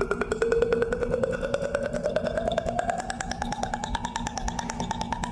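A single held tone gliding slowly upward and levelling off about four seconds in, over a fast, steady ticking.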